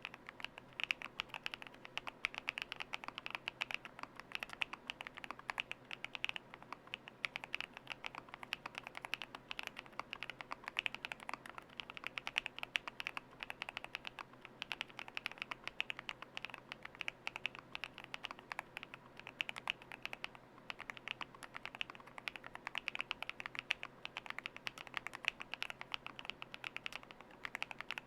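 Steady typing on a Monsgeek M2 mechanical keyboard with lubed Akko Cream Black linear switches and a tape-modded, foam-filled case: a continuous stream of fast keystrokes, each a short click.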